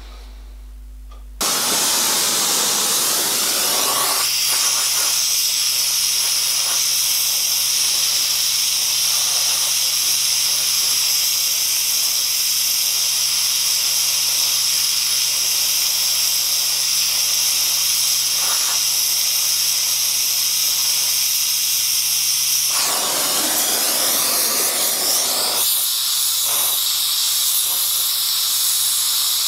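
Oxy-propane torch burning with a steady loud hiss as its flame heats a cold-rolled steel bar to relieve stress and straighten it. The hiss starts suddenly about a second and a half in, its tone shifting slightly a couple of times.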